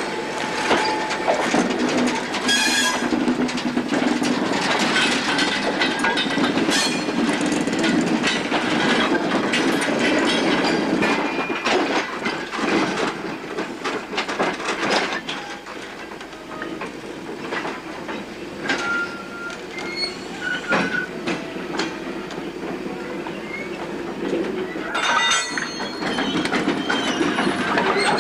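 Loose hopper wagons rolling slowly along yard tracks: a steady rumble of wheels full of clanks and knocks, with brief high-pitched wheel squeals, the sharpest shortly after the start and again near the end.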